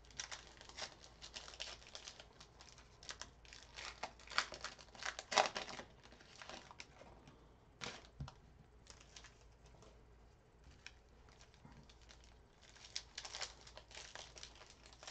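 Crinkling and tearing of plastic wrapping as a sealed box of trading cards is unwrapped. It comes in irregular crackly bursts and goes sparser for a few seconds just past the middle.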